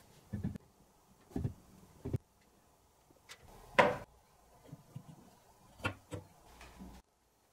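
Carved wooden model parts knocking against each other and against the bench as they are handled and set down: a series of short knocks and clatters, the loudest and sharpest about four seconds in.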